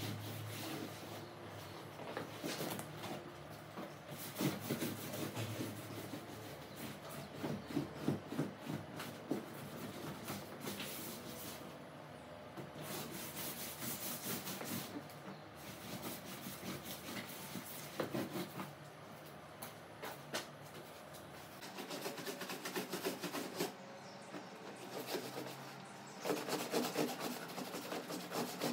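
A cloth in a rubber-gloved hand scrubbing a leather sofa with cream cleaner: continuous back-and-forth rubbing strokes, uneven in loudness.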